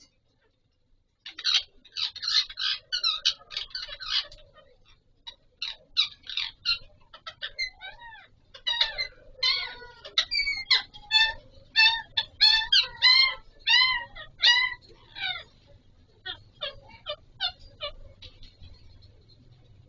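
Alexandrine parakeets (Pahari/Kashmiri 'raw' parrots) calling in a rapid series of short, shrill squawks and chattering notes. The calls begin about a second in, are loudest and densest in the middle, and thin out near the end.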